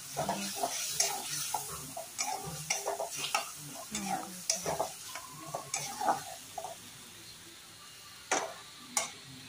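Flat metal spatula scraping and clacking around a metal kadai as a spice paste fries in oil with a light, steady sizzle. The stirring strokes come rapidly, thin out after about seven seconds, and end with two sharper knocks.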